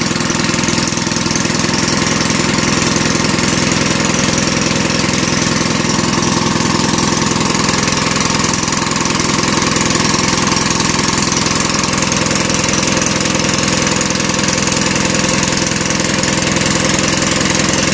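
Small engine driving a water pump, running steadily with a fast, even chugging.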